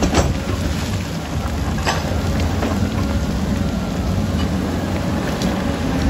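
Komatsu D85EX bulldozer's diesel engine running steadily under load as it pushes earth and rock, a low rumble mixed with the noise of loose rock and soil. There are two sharp knocks, one just after the start and another about two seconds in.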